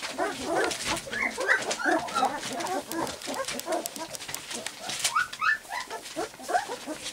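A litter of three-week-old golden retriever puppies whimpering and giving small yips, many short high calls overlapping one another, with light crinkling of newspaper under them.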